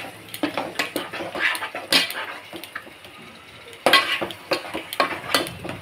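Spatula scraping and knocking against a pan while stirring a thick onion-tomato masala with ginger-garlic paste as it sautés. The strokes come irregularly, several a second, with a louder burst about four seconds in.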